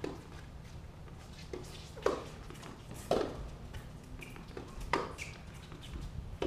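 Tennis ball struck by racquets and bouncing on a hard court during a doubles rally: a string of sharp pocks about one a second, over a steady low hum.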